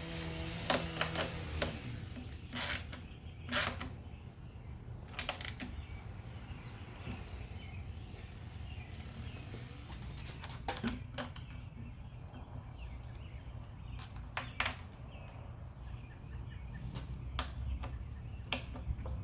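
Scattered sharp clicks and clinks of hand tools on metal engine parts as bolts are snugged down, a dozen or so spread unevenly, over a steady low hum.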